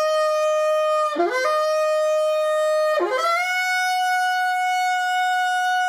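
Solo saxophone holding long notes, each entered with a short scoop up into the pitch: the same note twice, then a higher note held for about three seconds.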